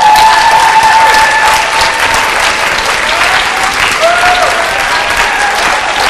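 Theatre audience applauding at the end of a play, with a few voices calling out in cheers over the clapping.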